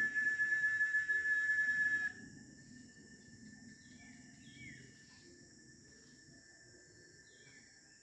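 Cicada singing a steady, high buzz that stops abruptly about two seconds in, leaving a much fainter buzz at the same pitch. A few short, falling bird chirps come afterwards.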